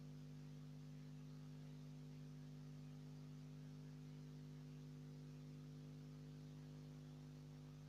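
Near silence: a faint, steady low hum with light hiss, and no thunder.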